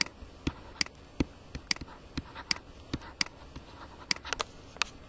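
Stylus tapping and clicking on a tablet screen during handwriting: irregular sharp clicks, about three a second, over a faint hiss.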